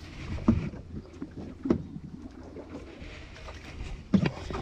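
A few sharp knocks and thuds on a small boat: three of them, the loudest near the end, over a steady low background noise.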